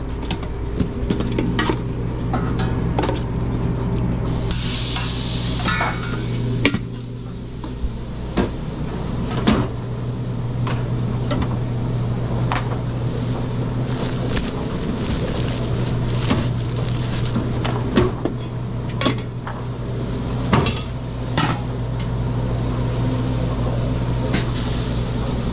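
Stainless steel hotel pans, lids and tongs clinking and knocking during food-trailer prep over a steady machinery hum, with food sizzling on a flat-top griddle. A short hiss comes about four seconds in and stops about two seconds later.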